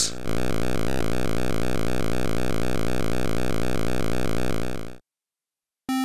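Synthesized 8-bit helicopter rotor sound effect, a steady fast-chopping buzz that fades out and stops about five seconds in. Just before the end, chiptune music begins.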